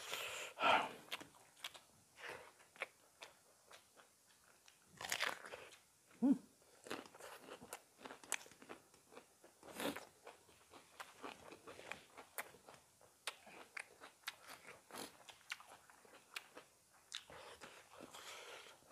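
Close-up sounds of two people eating spicy chicken curry and rice by hand: wet chewing, lip smacking and biting, with scattered small clicks. A brief low hum of a voice comes about six seconds in.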